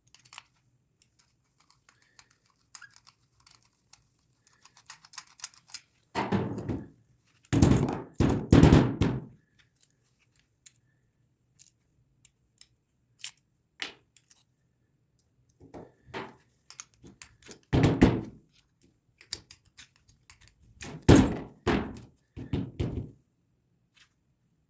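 Irregular thunks and knocks of carburetor parts and tools being handled on a workbench during servicing. There are quiet gaps between them, with the loudest clusters about six to nine seconds in, around eighteen seconds, and again a little past twenty seconds.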